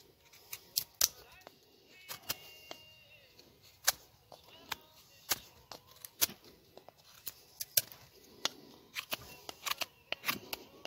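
Mora knife carving a piece of dry firewood: sharp, irregular clicks and snaps as the blade bites and shavings break off, about two a second and coming faster towards the end.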